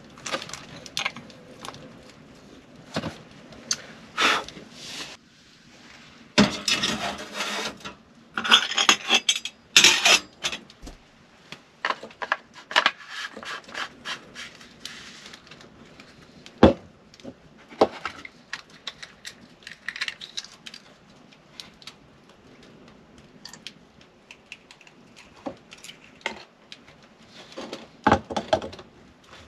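Small metal and plastic espresso-kit parts and an Outin portable espresso maker handled on a wooden countertop: scattered clinks, taps and knocks, with a denser few seconds of rustling and scraping about six to ten seconds in.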